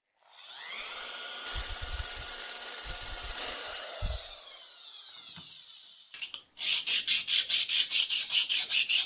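A steady power-tool hum with a few low knocks, fading and falling in pitch from a little before halfway. Then, about two-thirds of the way in, fast rhythmic rasping strokes, about five a second: a scraper cutting the steel tapered gib of a Schaublin 102 compound slide held on a magnetic chuck.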